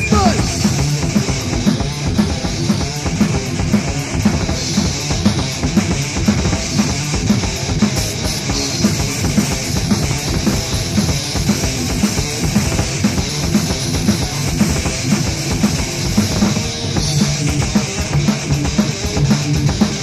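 Thrash metal band playing a fast, driving passage on a lo-fi demo tape recording: pounding drum kit under distorted electric guitars and bass, the beat steady and unbroken.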